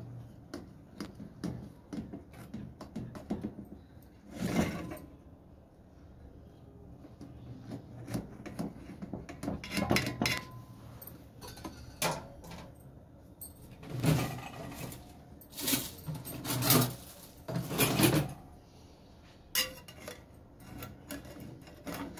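A knife and a cake server cutting a sauce-soaked cake and scraping and clinking against an enamel dish: irregular small clicks and knocks, with several louder clattering scrapes in the second half.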